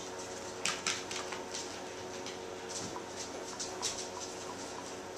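Quiet indoor room tone with a faint steady hum, broken by a few soft clicks and brief rustles, two of them a little louder about a second in.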